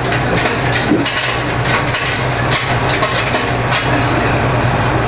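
Diesel engine of a Mizushima Rinkai Railway MRT300 railcar idling while the train stands still: a steady low hum. A few light knocks and clicks sound over it in the first four seconds.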